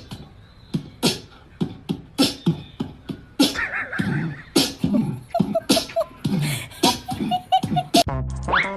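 Sharp percussive clicks in an uneven rhythm. From about three and a half seconds in, a person's voice joins them, making wordless vocal sounds among short high notes.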